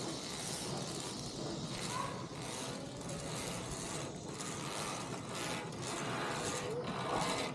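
Metal safety-harness gear (pulley and carabiners) clicking and rattling as it runs along the overhead steel cable of a hanging canopy bridge, in irregular clicks.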